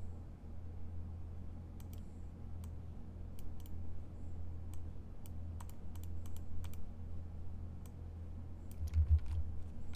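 Scattered, irregular computer-keyboard typing and clicks over a steady low hum, with a few soft low thumps near the end.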